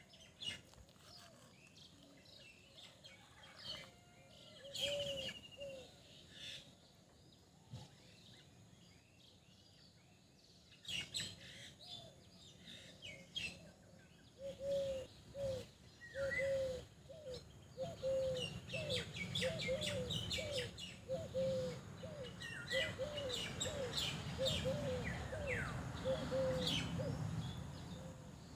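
Birds chirping and calling, with scattered short high chirps; about halfway in a run of short, arched, repeated calls begins, about two a second, and continues almost to the end.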